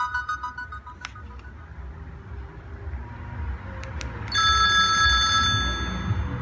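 Sony Ericsson K300i ringtones: a fast melody of bright electronic notes ends in the first second with a click. After two more clicks near four seconds, the next ringtone begins as a held chord of bright electronic tones. A low rumble runs underneath.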